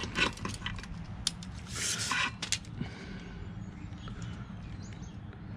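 Retractable tape measure being pulled out along a regulator hose, with scattered clicks and rattles and a short rasp about two seconds in.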